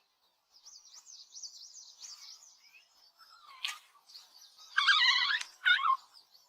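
Small birds singing: a fast, high twittering, then louder warbled phrases about five seconds in and again just before six seconds.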